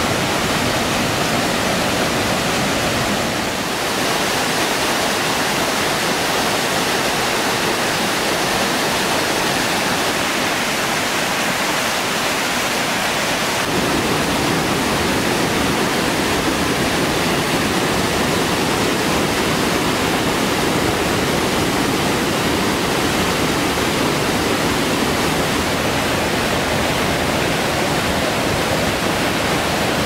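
Waterfall cascades on a mountain stream: white water tumbling over mossy boulders, a steady, loud rush of water. About halfway through the rush becomes deeper and fuller.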